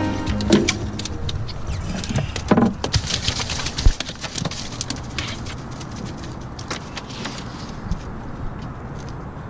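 Knocks and thumps of handling on a fiberglass boat deck around an open fish box holding fresh-caught speckled trout, the sharpest in the first four seconds, with a short spell of hiss about three seconds in, then a steady low background of wind and water.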